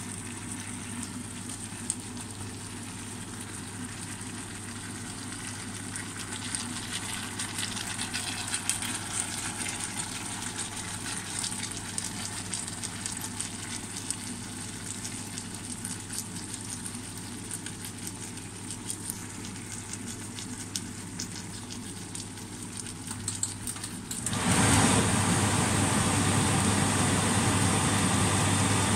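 Dried fish with tomatoes and onions sizzling and simmering in oil in a frying pan, a steady hiss with small scattered crackles. Near the end a louder, steady rushing noise comes in suddenly and holds.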